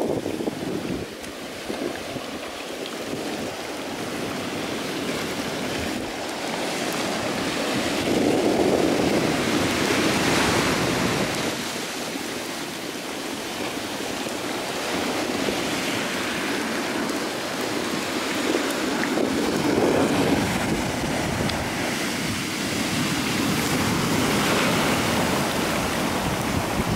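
Ocean surf breaking and washing up the shore, the rush of water swelling and fading several times as waves come in.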